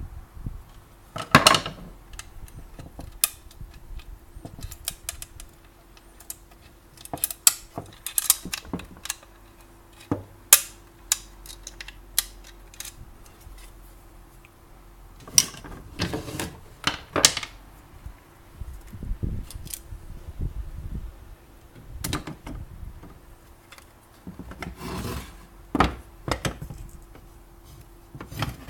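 Parts of a Kambrook KOM1 omelette maker being handled and worked on during a teardown: scattered sharp clicks and knocks with bouts of scraping and rubbing.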